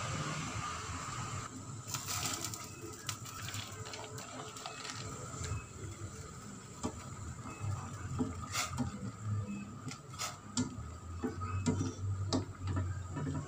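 Water boiling in a stainless steel pot while bean sprouts are blanched, with scattered clicks and knocks of a plastic slotted skimmer against the pot and splashes of water, over a steady low hum.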